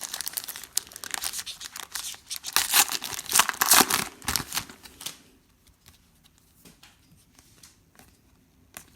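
Foil trading-card pack wrapper crinkling and tearing as it is ripped open by hand. The rustling is loudest a few seconds in and stops about five seconds in, leaving only faint clicks of cards being handled.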